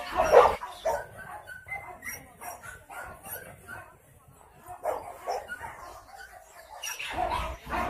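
Several dogs barking and yipping in short, scattered calls. The barking is loudest at the very start and again near the end, fainter in between.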